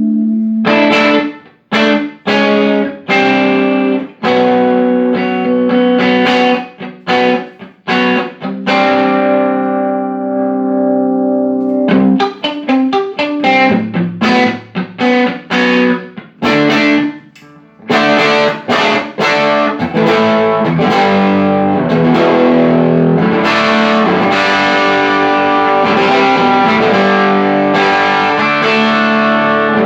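Electric guitar played through a Laney Cub12 valve amp with EL84 output valves, with an overdriven tone. It plays short chord stabs with gaps in the first half, then continuous strummed chords from about eighteen seconds in. This is a sound test showing the amp working after repair of its blown output transformer, shorted EL84 and bias supply.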